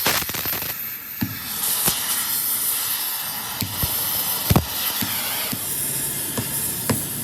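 A steady hiss with irregular sharp cracks and knocks scattered through it, the loudest about four and a half seconds in.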